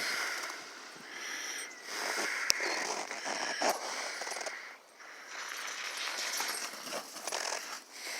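Irregular crunching and crackling of boots moving through snow, with a few sharp clicks.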